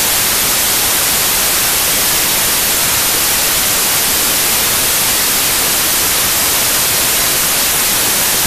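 Loud, steady static hiss like white noise, even from low to high pitches and with no tones in it: a static sound effect laid over the channel intro.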